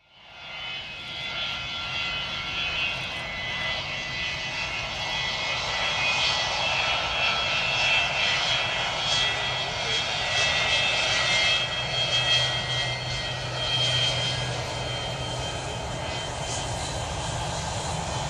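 Boeing 727's Pratt & Whitney JT8D turbofan engines running: a steady jet roar with high whining tones over it, fading in over the first second or so.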